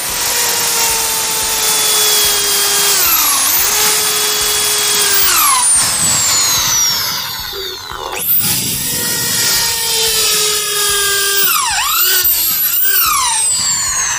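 Bosch electric hand drill boring into a sewing-machine table top: the motor's whine sags in pitch each time the bit bites under load. It winds down about six seconds in and speeds up again about two seconds later.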